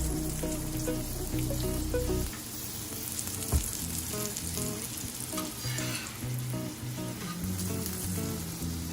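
Oil sizzling as a stuffed paratha fries on a griddle, under background music. One sharp tap about three and a half seconds in.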